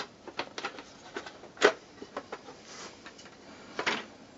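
Plastic clicks and knocks from the two halves of a Hotpoint tumble dryer door being pulled apart and handled, with a sharp knock about one and a half seconds in and a short scraping clatter near the end.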